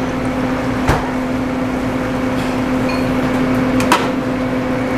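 Commercial wok range running with a steady roar and constant hum, with two sharp metal clinks of the ladle against the carbon-steel wok, about a second in and again about four seconds in.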